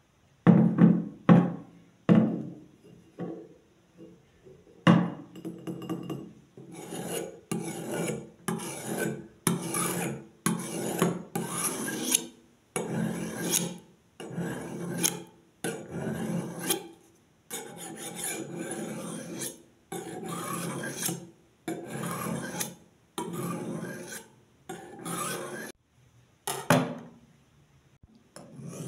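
A few sharp knocks, then a kitchen knife's blade scraped again and again along the unglazed foot ring on the bottom of an upside-down ceramic bowl, a rasping grind with each stroke, about one stroke a second: the edge being sharpened on the rough ceramic.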